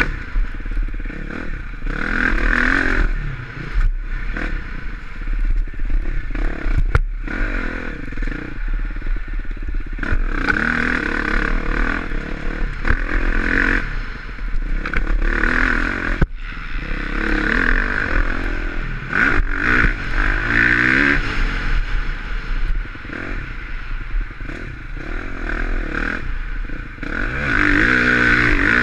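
A 2020 KTM 350XC-F's single-cylinder four-stroke engine, heard from on the bike while it is ridden hard, its revs rising and falling again and again every couple of seconds. There are occasional sharp knocks and clatter, and a steady low wind rumble on the microphone.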